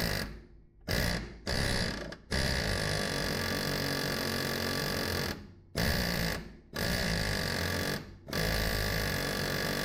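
Pneumatic air hammer rattling against the rear end of a torsion bar to break loose the rust-seized bar. A few short blips, then longer runs of one to three seconds each.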